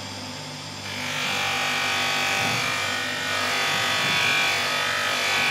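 Polishing machine motor running with a steady hum; about a second in, a steel chisel is pressed against the underside of the spinning fine buffing wheel charged with polishing compound, adding a louder, higher rubbing sound that carries on to the end.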